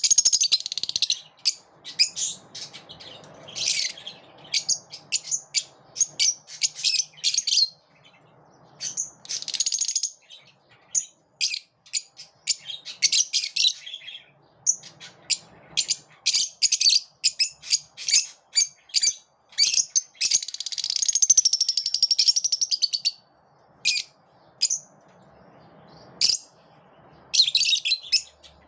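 A group of lovebirds chirping and chattering: runs of quick, high-pitched chirps broken by short pauses, with a longer stretch of continuous chatter about two-thirds of the way through.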